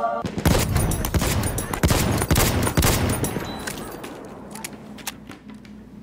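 Fast clatter of many hard plastic clicks as keycaps are pulled off a mechanical keyboard, dense and loud at first, then thinning to scattered single clicks over the last couple of seconds.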